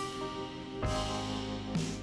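Polyphonic ringtone playing from a Siemens AX75 mobile phone: a melody of held notes over a steady low bass, with new notes struck a little under a second apart.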